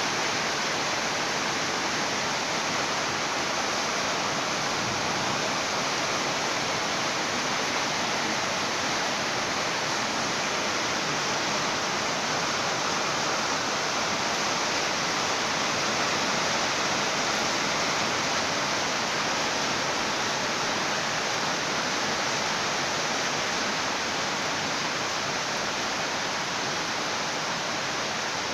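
Steady rain, an even hiss that holds at one level throughout, with no thunder.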